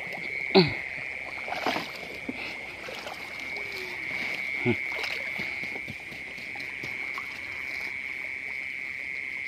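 Frogs calling: a steady high-pitched chorus runs throughout, and two loud croaks slide downward in pitch, one about half a second in and one near the middle.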